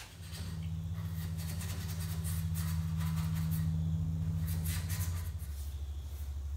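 A machine running with a steady low hum that comes on at the start and drops to a lower pitch about five seconds in. Under it is the light swish of a paintbrush working stain into a wooden cabinet.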